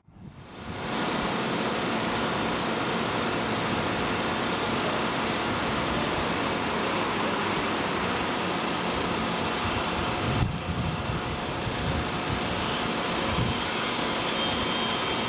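Steady rushing outdoor noise with a faint hum, typical of highway traffic, and a soft low thud about ten seconds in.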